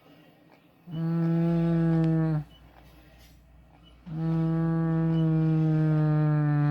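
Train horn sounding two blasts: a short one about a second in and a longer one starting about four seconds in, each a steady single note that sags slightly in pitch as it cuts off.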